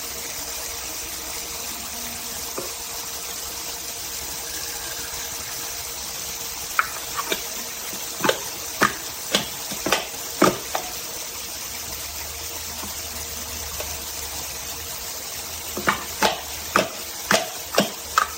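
Toy kitchen sink's small electric pump running a steady stream of water from its faucet. Light knocks and clinks, like play dishes being handled in the basin, come about seven seconds in and again near the end.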